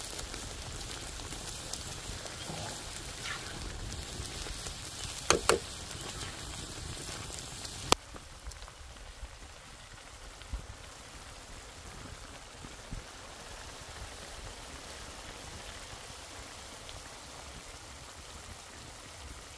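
Thick onion-tomato masala paste bubbling and sputtering on a large iron tawa over a wood fire, being roasted until the oil begins to separate. Two sharp pops about five seconds in and a sharp click near eight seconds, after which the sputtering is a little quieter.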